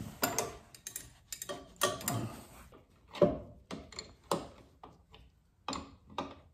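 Irregular metal clicks and clinks, about a dozen of them, from a wrench working the brass adapter fitting and brake line fittings on a master cylinder.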